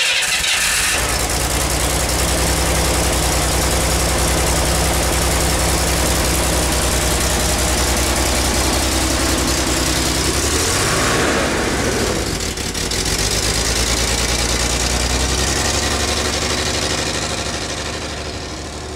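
A 1967 Corvair's rebuilt 140 hp air-cooled flat-six, freshly started, runs at a steady idle. About ten seconds in its note shifts as the car moves off, and then it fades away as the car drives off near the end.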